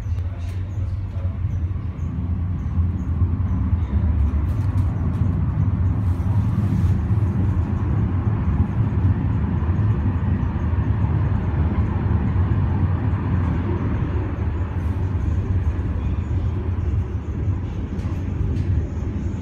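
Funicular car rumbling along its track, growing louder over the first couple of seconds as it gets moving and then running steadily, with a few faint clicks.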